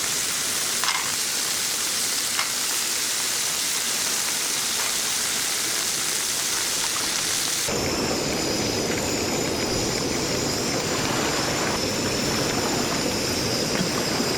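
Cockles sizzling in hot oil and garlic in a frying pan as they cook and begin to open, a steady frying hiss. About halfway through the sound changes abruptly to a lower, fuller sizzle.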